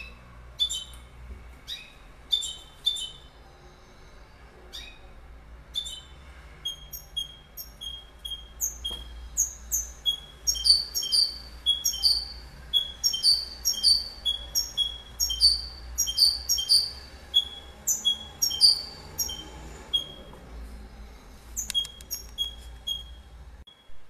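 European goldfinch singing: a few scattered twittering calls at first, then from about six seconds a fast run of repeated high notes and downward-sweeping trills, which dies away about two seconds before the end.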